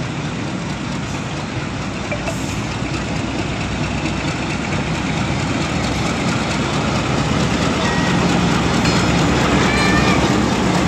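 Pakistan Railways diesel locomotive running as it approaches and passes close by at slow speed, its engine rumble and the train's running noise growing steadily louder.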